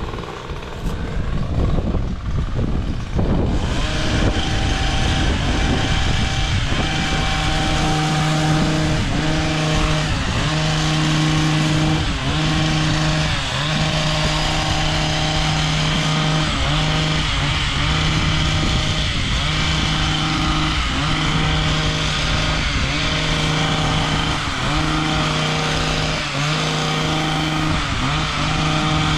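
An engine running steadily with a constant hum that sets in a few seconds in. Its pitch dips briefly about every second and a half.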